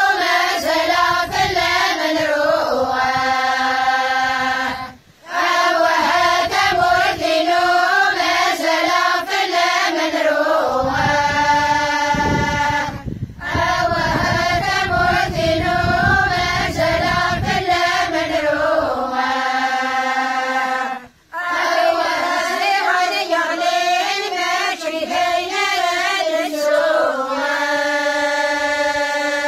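Kabyle women and girls singing a traditional song together in unison, unaccompanied. The song moves in phrases of about eight seconds, each closing on a long held note and a short breath before the next.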